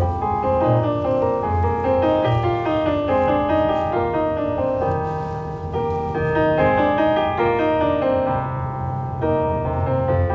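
Instrumental piano music: quick runs of notes rising and falling over low bass notes.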